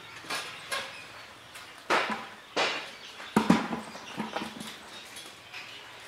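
A series of short animal calls at irregular intervals, about seven in all, the loudest about three and a half seconds in.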